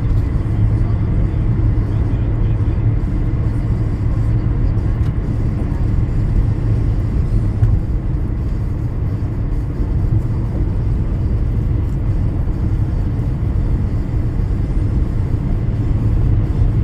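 Steady road noise of a car driving on a rain-wet road: a constant low rumble of tyres and engine.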